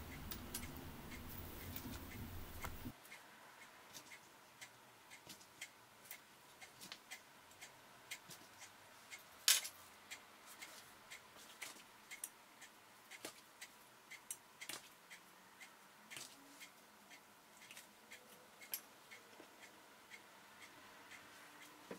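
Faint, scattered clicks and taps of metal cookie cutters being pressed through rolled-out cookie dough onto a countertop and set down, with one louder knock about halfway through.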